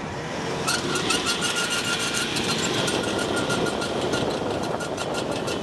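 A motor running steadily with a rapid, even clatter, joined a little under a second in by a steady high whine, during the recovery of a 4x4 stuck in mud.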